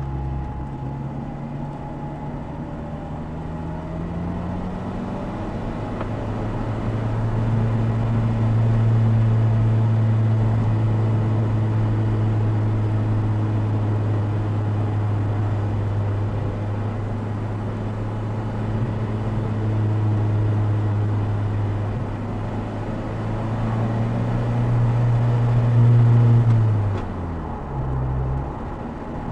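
Opel Speedster Turbo's 2.0-litre turbocharged four-cylinder engine pulling through the gears, heard from just behind the seats with the top down. The revs climb over the first few seconds and hold steady for a long stretch. Near the end the engine note drops sharply, then briefly rises and falls again.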